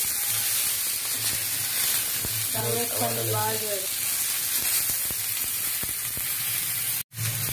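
Tomatoes sizzling as they fry in a little oil on a hot iron pan, with a steady hiss and light taps and scrapes of a metal spoon turning them.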